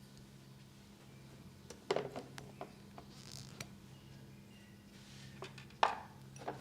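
A scatter of short, light clicks and taps, several about two seconds in and the loudest near the end, with a brief swish about three seconds in, over a faint steady hum.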